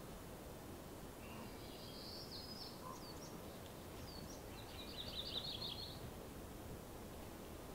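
Small birds calling over a faint, steady outdoor hiss: a few scattered chirps, then a rapid trilling phrase a little past the middle.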